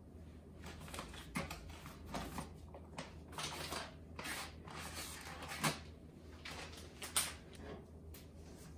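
Rummaging in a kitchen cupboard: food packages rustling and items knocking against the shelf, with a few sharper knocks.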